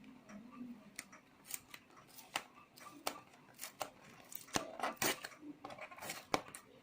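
A run of irregular sharp clicks and snaps, with faint rustling between them: packaging and plastic parts being handled.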